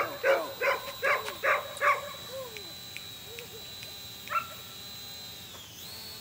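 A dog barking: a quick run of five or six barks over the first two seconds, then one more bark about four seconds in.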